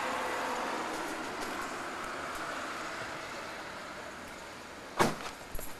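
Steady rushing noise that slowly fades, then a door slamming shut about five seconds in, followed by a few lighter knocks.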